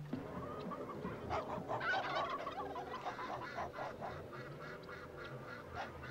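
White domestic geese honking, several calls overlapping in a continuous chatter.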